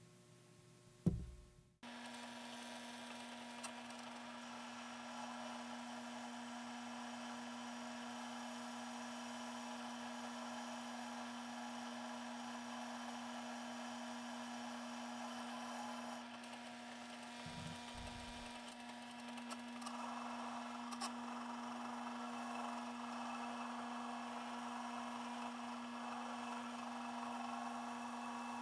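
A small electric power tool running steadily, its motor giving a constant hum under a grinding, abrasive noise that gets somewhat louder about two-thirds of the way through. It starts just after a knock about a second in and cuts off suddenly near the end.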